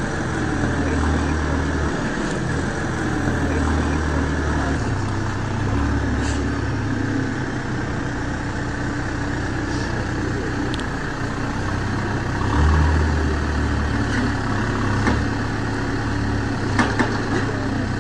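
Backhoe loader's diesel engine running as it works, its revs rising and falling, with a few faint knocks near the end.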